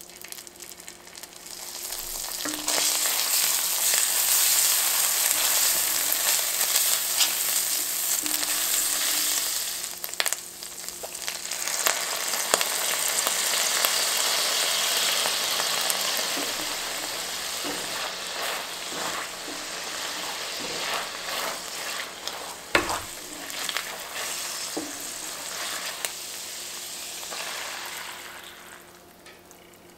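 Calabrian chili paste sizzling and frying in hot melted butter in an enameled cast-iron pan, with stirring and a few sharp taps of the utensil on the pan. The sizzle dips around ten seconds, comes back strongly as vodka goes into the hot pan, and dies away near the end as roasted-pepper purée is poured in.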